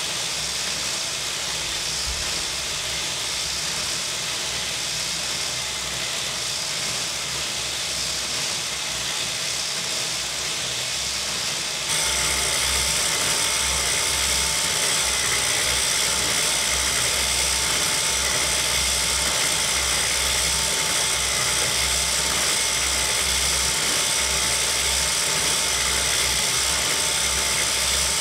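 A motor-driven, 3D-printed circular knitting machine running and knitting, with a steady mechanical whir. About twelve seconds in it gets louder, with a clearer whine.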